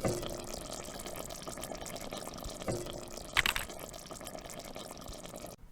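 Water running steadily, with a few light knocks and a short splashy burst about three and a half seconds in, ending in a sharp clack.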